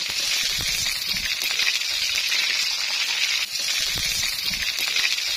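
Hot oil sizzling steadily as coconut beetle grubs deep-fry in a pan with pandan leaves, on their second frying to turn them golden and crisp.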